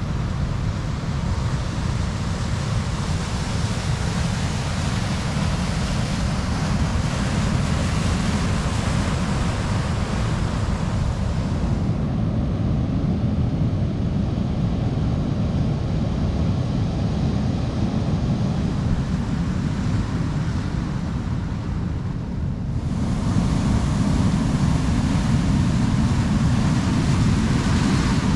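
Ocean surf breaking and washing over a stony beach, with wind rumbling on the microphone. The sound shifts abruptly twice and is louder near the end.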